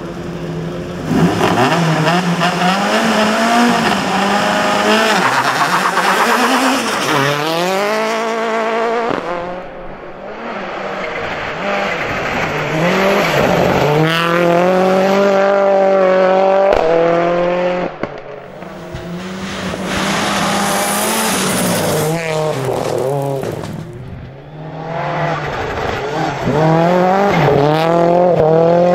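Mitsubishi Lancer Evo 9 rally car's turbocharged four-cylinder engine driven hard. The revs climb and drop again and again through gear changes as the car accelerates past on the stage.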